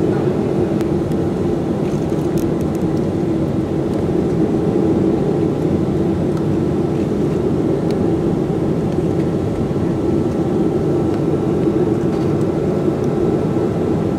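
Steady jet engine and airflow noise heard from inside the cabin of a Boeing 737-500, even in level with a faint steady whine over the low drone.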